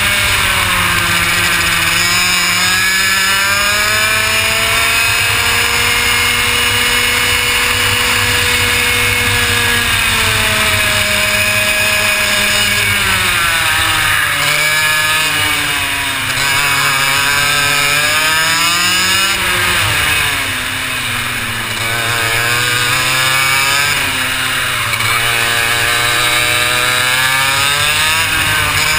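Two-stroke racing kart engine at full race pace, heard onboard: its pitch climbs on the throttle and drops several times when braking for corners, with the deepest dips in the second half.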